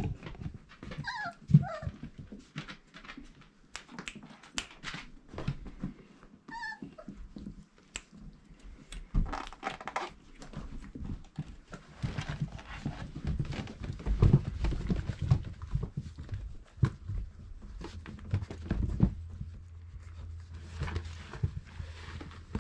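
Four-week-old Irish Setter puppies in a whelping pen: a couple of short falling whimpers near the start, over scratching, clicking and knocking of paws on the pen floor and bedding. In the second half the movement gets heavier, with denser low thumping and shuffling.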